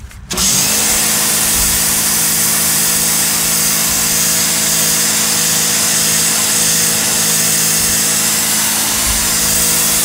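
Sun Joe SPX3000 electric pressure washer cutting in suddenly just after the start and then running steadily: its motor and pump hum under the loud hiss of the water jet spraying concrete steps.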